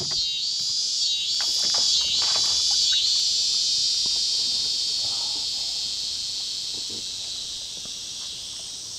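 A chorus of insects giving a dense, high-pitched buzz that swells over the first few seconds, then slowly fades.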